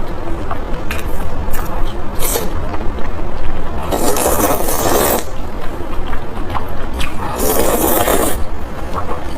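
Noodles slurped close to the microphone in two long slurps of about a second each, between light clicks and scrapes of utensils against a bowl.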